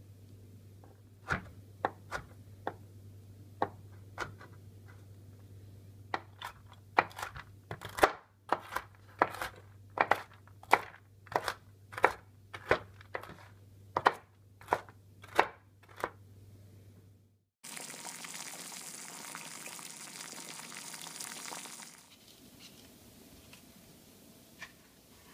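Chef's knife chopping dried apricots and then pecans on a cutting board: scattered sharp knocks at first, then a steady run of about two strikes a second, over a faint low hum. About 17 seconds in the chopping stops and a steady hiss runs for some four seconds, then cuts off.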